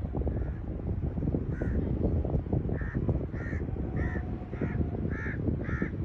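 Crows cawing repeatedly, a few spaced caws at first, then quicker runs of about two caws a second from the middle on, over a steady low rumble.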